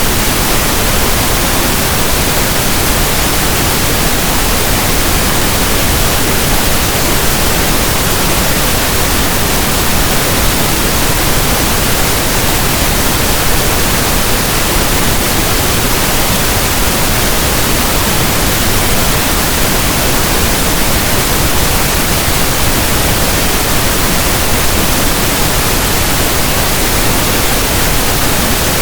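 Steady pink noise: an even, unchanging hiss like static from a radio tuned between stations.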